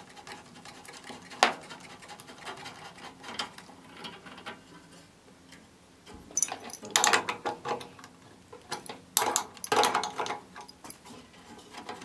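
Light clicks and metallic rattling from a water heater's flexible corrugated burner supply tube and its brass fittings as they are unscrewed by hand from the gas control valve and moved. There is a sharp click about a second and a half in, and two bursts of rattling in the second half.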